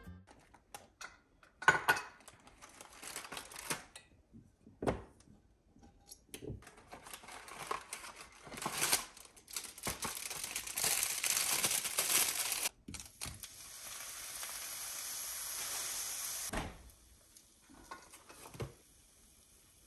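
Close handling sounds: crinkling and rustling with scattered small clicks and knocks, then an even hiss for about three seconds that cuts off suddenly.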